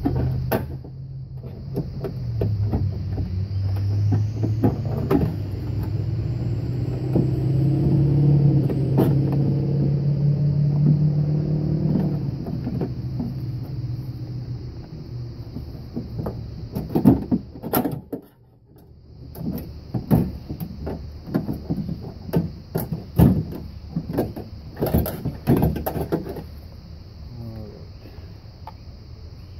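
Hands working the door lock actuator and its linkage rods free inside a Honda CR-V front door: a steady low rumble for the first twelve seconds or so, then a run of sharp knocks and clicks of hard parts against the door's inner panel in the second half.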